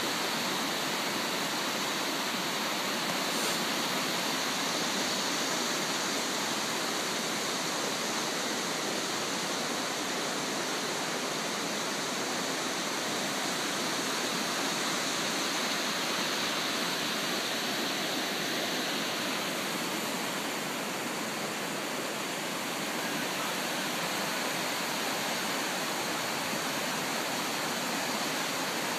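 The River Sid in flood, fast floodwater rushing over and around a small submerged footbridge: a steady, even rushing of water.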